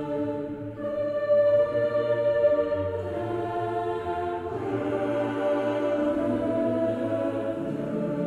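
Background music: slow, sustained chords that hold and change every second or two.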